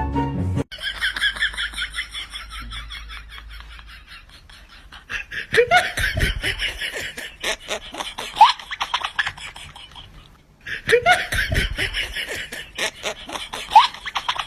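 Laughter in rapid bursts. It breaks off briefly about two-thirds of the way through, then starts again.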